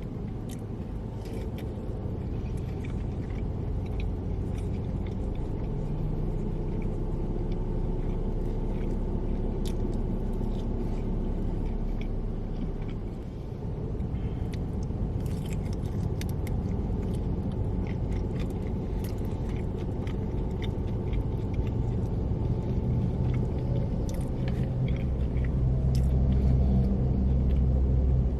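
Eating sounds, small crunches and smacks of chewing and biting, over a steady low rumble that swells near the end.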